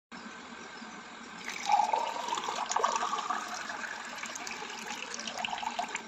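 Water being poured into a glass tumbler, starting about a second and a half in and running on with splashing and bubbling as the glass fills.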